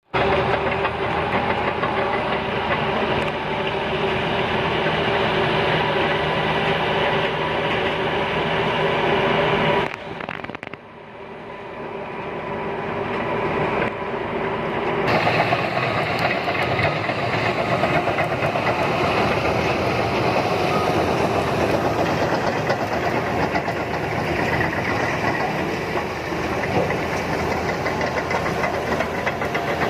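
Liebherr PR745 crawler bulldozer's diesel engine running with a steady drone. The sound drops sharply about ten seconds in, builds back up, and from about fifteen seconds on is rougher and noisier.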